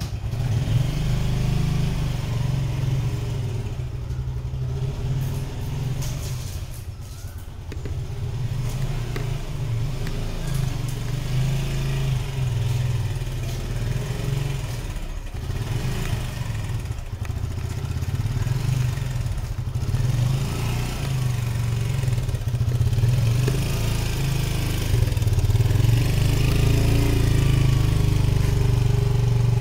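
Motorcycle engine running at low speed as the bike is ridden slowly, getting louder in the last few seconds.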